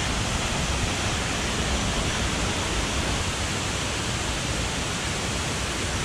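Waterfall falling into a rocky pool: a steady rush of water.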